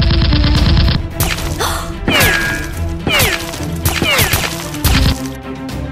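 Dubbed-in automatic gunfire sound effect, a rapid rattle for about a second, then three falling whizzes about a second apart and another short burst near the end, over action background music.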